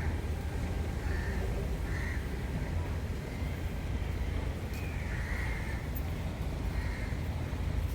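Crows cawing, several separate caws spread over a few seconds, above a steady low rumble.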